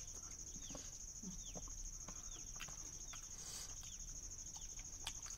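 Steady high-pitched insect trill, with a bird giving a run of short falling chirps and a few faint clicks.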